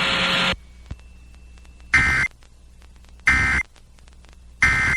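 Weather-radio static that cuts off about half a second in, followed by three short, identical bursts of two-tone digital data screech about a second and a half apart. These are the SAME end-of-message (EOM) code that closes a National Weather Service warning broadcast on NOAA Weather Radio.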